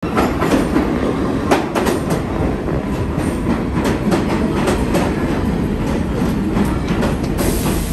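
New York City subway train running into a station alongside the platform: a loud, steady rumble with many sharp wheel clicks over the rail joints.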